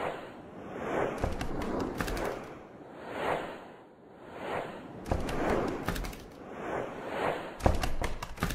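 Whoosh sound effects of an animated title sequence, swelling and fading about once a second, with a few low thuds, the loudest near the end.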